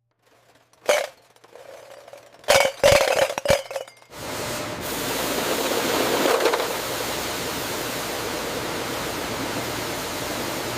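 Several sharp metallic clinks, then a steady hissing spray that starts about four seconds in and keeps going.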